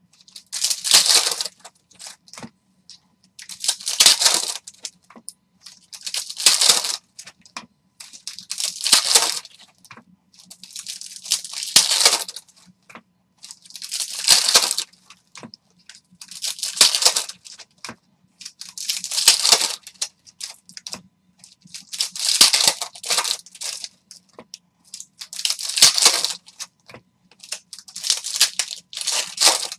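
Foil wrappers of Upper Deck hockey card packs being torn open and crinkled by hand, one pack after another, a sharp crackling rip about every two and a half seconds.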